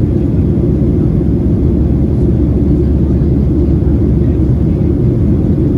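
Boeing 737-700 in flight after takeoff, heard as a steady, loud cabin rumble of its CFM56 jet engines and airflow, even and unchanging.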